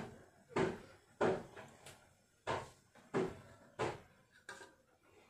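A series of about seven sharp knocks, each dying away quickly, coming roughly every half second to a second with a short gap near the middle.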